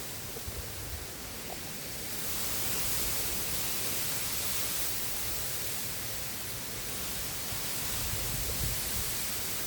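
Strong wind buffeting the microphone over a steady rushing hiss of wind and river water, with irregular low rumbles. The hiss grows louder about two seconds in.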